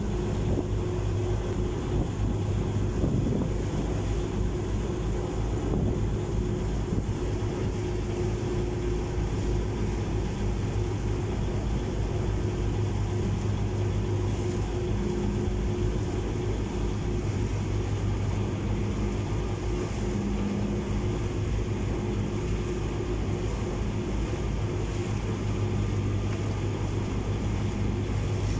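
A ferry's engine running steadily with a low hum, over the rush of water churning in its wake and wind buffeting the microphone.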